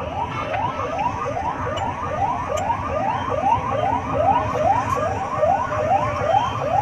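Emergency-vehicle siren on a fast yelp, each rising wail repeating about three times a second, over a steady low rumble.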